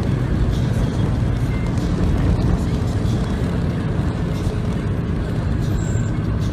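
Steady low engine rumble of a moving vehicle, with an even noise haze over it and no change in level.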